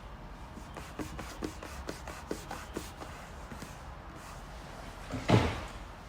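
A run of light clicks, about three or four a second, from a screwdriver working the fixing screws on an analyser's pipettor assembly. A single louder knock follows about five seconds in.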